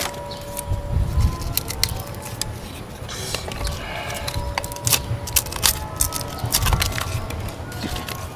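Birch bark being cut and scraped with a knife for fire tinder: an irregular run of sharp scrapes and clicks.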